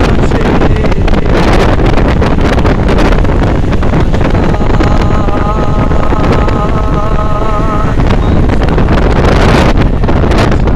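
Heavy wind buffeting the microphone of a camera in a moving vehicle: a loud, steady rush and low rumble. A wavering pitched tone sounds for a few seconds in the middle.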